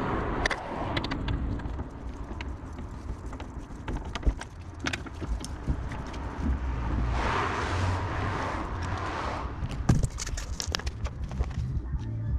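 Scattered metal knocks and clanks of hammer blows on a rusted, seized rear wheel hub, the hardest one about ten seconds in, with a stretch of hissing noise in the middle.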